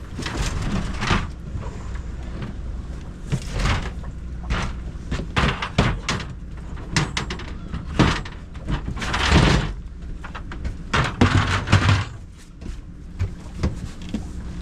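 Irregular knocks, thuds and scrapes of a rockfish catch and containers being handled on a fishing boat's deck, with a couple of longer rushing noises, over a steady low rumble.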